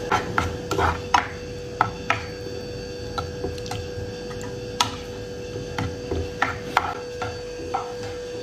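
Plastic spatula stirring diced tomatoes in a non-stick frying pan, with irregular knocks and scrapes against the pan over a steady hum.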